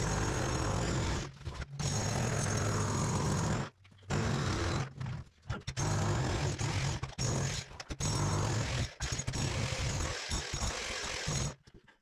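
Corded electric demolition hammer chiselling into a concrete bathroom floor, hammering in runs with brief stops between them, the longest stop about four seconds in.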